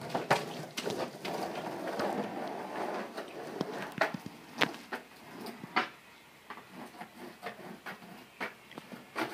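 Skateboard wheels rolling over concrete paving slabs, punctuated by sharp clacks and knocks from the wheels and board. The rolling rumble fades after about four seconds, leaving scattered clacks.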